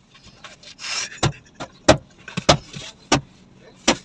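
Cloth wiped over a car windscreen, heard from inside the car: a rubbing swish about a second in, then sharp knocks on the glass, about one every two-thirds of a second.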